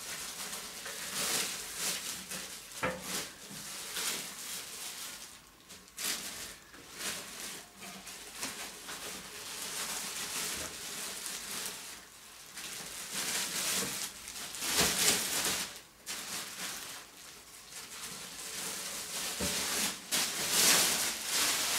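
Clear plastic protective bag crinkling and rustling as it is pulled off a computer case, in uneven bursts, with louder stretches about two-thirds of the way through and near the end.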